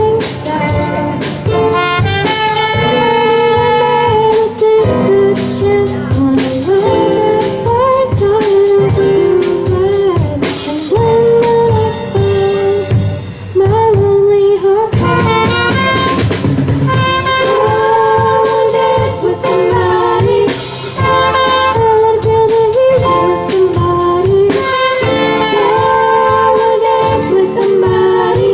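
Student garage band playing live: full band music with drums and a sustained melody line, easing off briefly about halfway through.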